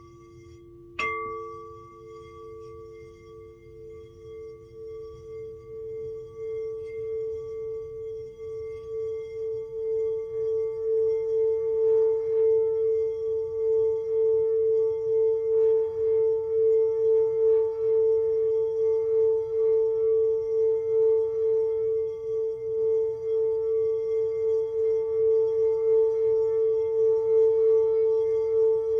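Singing bowl struck once about a second in, then its single steady tone swells louder and holds, wobbling evenly, for a sound-bowl energy healing.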